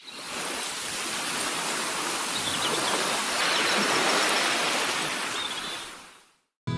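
Steady rushing of water with a few faint high chirps, fading in at the start and fading out near the end.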